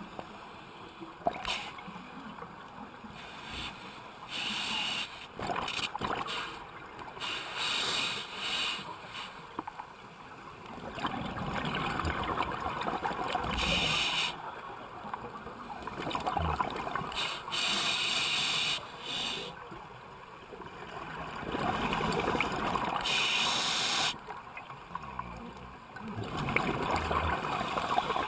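Scuba diver breathing through a regulator underwater, with rushes of air and bubbling exhaust. The surges come and go every few seconds and grow longer and louder from about ten seconds in.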